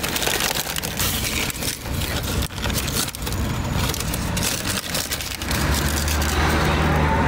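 Paper bag crinkling and rustling as it is pulled back from a deep-fried arancino, with a steady low motor-vehicle hum coming up about five and a half seconds in.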